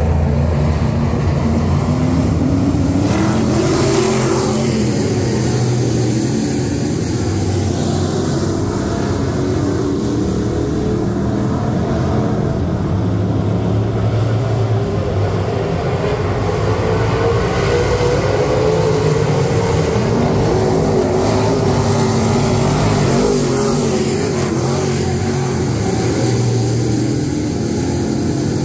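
Dirt-track race cars running laps on a clay oval, several engines heard at once, their pitch rising and falling as they accelerate and back off around the turns.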